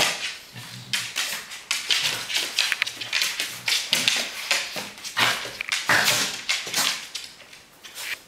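Two small dogs play-fighting, with a run of short, irregular growls and snarls and scuffling on a wooden floor, dying down near the end.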